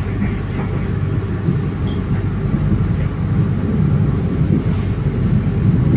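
Steady low rumble of a moving vehicle, heard from inside it while it travels at speed.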